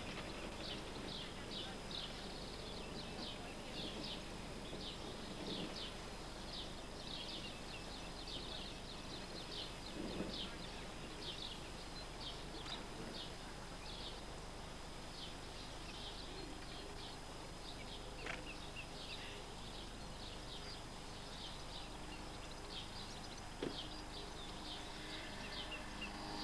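Open-air ambience: a steady background hiss with short, high chirps repeating about twice a second, and a faint voice near the end.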